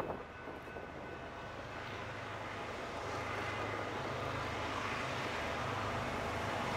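Diesel locomotive of an approaching train: a steady low engine drone that grows gradually louder.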